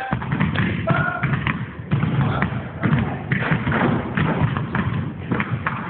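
Basketballs bouncing on a court floor, with many irregular thuds close together, and voices in the background.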